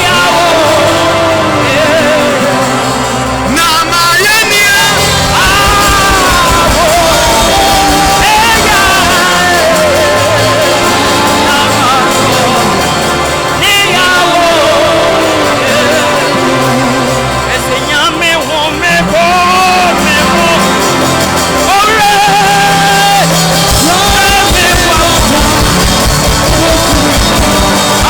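Loud music with a voice singing a wavering melody over a steady bass line, with some shouting mixed in.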